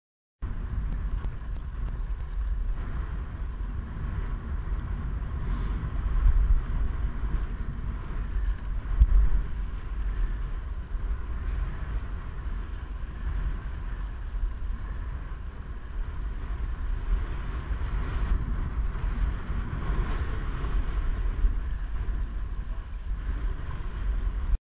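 Wind buffeting a windsurf rig's action-camera microphone, a steady low rumble that swells in gusts about six and nine seconds in, over the rush of water past the sailboard.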